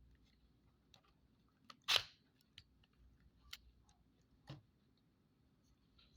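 Scattered small plastic clicks from a Palm infrared keyboard being handled, with a sharper snap about two seconds in and another click about four and a half seconds in.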